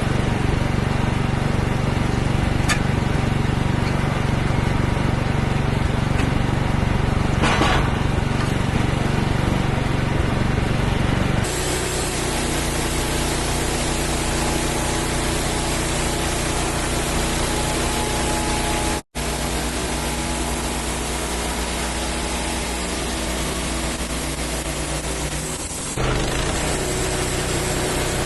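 Wood-Mizer portable band sawmill running, its engine humming steadily as the band blade saws through a black walnut log. The sound changes abruptly about eleven seconds in, turning hissier, and cuts out for an instant a little later.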